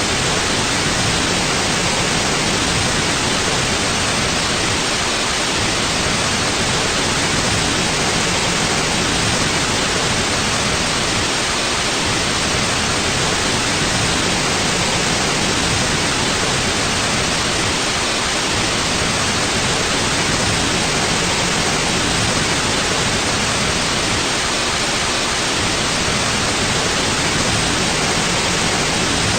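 Steady white noise: an even, unchanging hiss with no events or changes.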